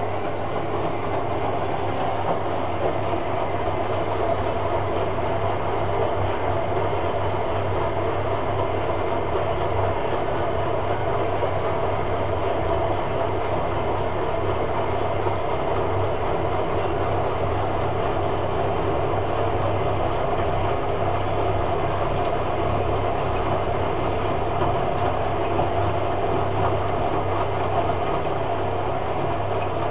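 Hoover Logic 1200 washing machine running, a steady rumble with a constant low hum from its motor and drum.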